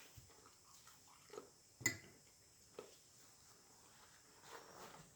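Faint chewing and mouth sounds of someone eating a cheeseburger, with a few soft smacks or clicks, the sharpest about two seconds in.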